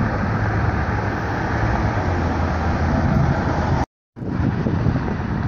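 Steady outdoor rumble of wind on the microphone and vehicles, with a brief dead gap about four seconds in where the recording is cut.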